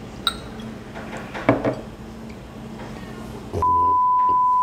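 Glass clinks as soju is poured from the bottle into a shot glass, then about three and a half seconds in a loud, steady, high beep starts: a dubbed-in censor bleep covering the shot being drunk.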